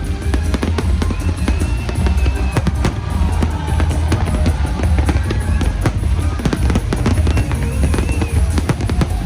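Fireworks display going off: rapid, dense bangs and crackling throughout, with music playing alongside.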